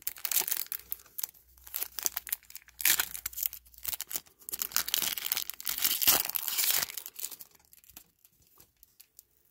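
Foil trading card pack wrapper crinkling and tearing as it is pulled open by hand, in irregular crackling bursts that die away about eight seconds in.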